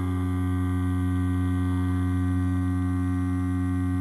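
Direct-drive rotary tattoo machine with a 4.5 stroke running at a steady, even hum while its needle pulls a line in synthetic practice skin.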